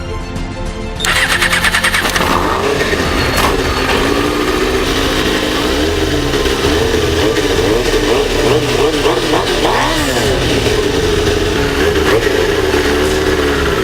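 Freshly rebuilt Suzuki GSX-R 600 K3 inline-four engine starting about a second in and firing on the first try. It then runs with the revs repeatedly rising and falling.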